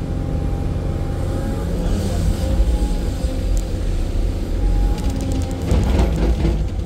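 Excavator's diesel engine running steadily with a whine above it, and a quick rattle of knocks about five seconds in.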